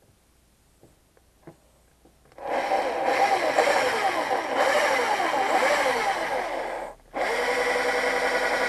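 18V cordless drill with a small bit drilling a pilot hole into a broken stud on a small strimmer engine. The drill starts about two seconds in, its pitch wavering as the bit cuts, stops briefly near seven seconds, then runs again at a steady pitch.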